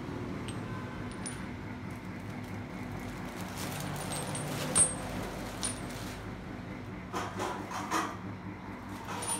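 Small steel thread-cutting taps handled and set down, clinking lightly a few times in the second half, over a steady low hum.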